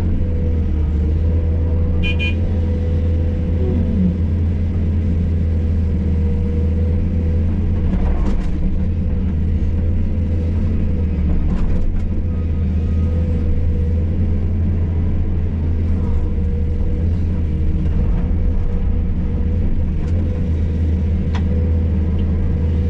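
Hydraulic excavator's diesel engine running steadily, with a steady whine above the rumble and a few scattered clanks.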